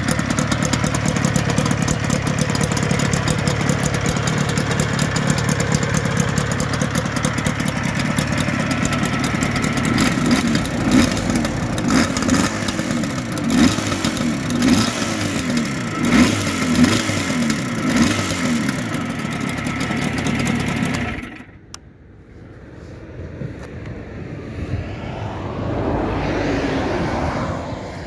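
Custom two-stroke motorcycle engine with expansion-chamber exhausts idling, then revved in a series of quick throttle blips, each rising and falling in pitch, before cutting out about three-quarters of the way through, leaving a much quieter noise.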